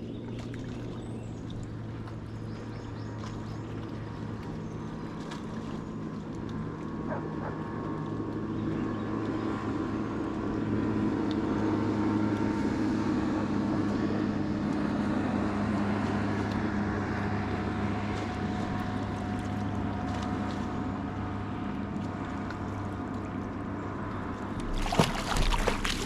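A boat motor's steady low hum swells toward the middle and then eases off. About a second before the end comes a short burst of splashing.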